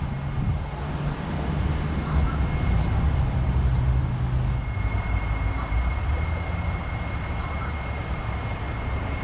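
Diesel semi-truck engine running with a steady low rumble while it maneuvers a long boat trailer, with a thin steady high tone joining about halfway through.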